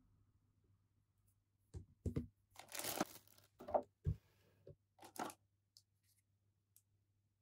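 Thin clear plastic packaging crinkling and rustling in a string of short bursts as figure parts are handled and pulled from it, the longest and loudest burst near the middle.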